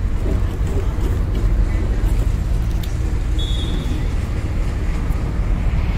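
Steady low rumble of outdoor background noise with faint voices, and a brief high steady tone a little past the middle.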